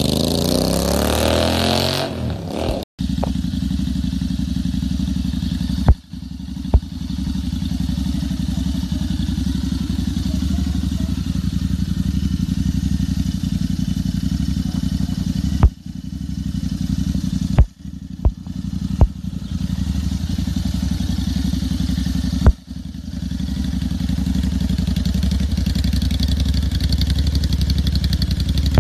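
Royal Enfield Interceptor 650 parallel-twin through a modified aftermarket exhaust. For the first two seconds the bike accelerates away, its note rising and falling. After a cut it idles steadily with a deep, even beat, broken by several sharp clicks.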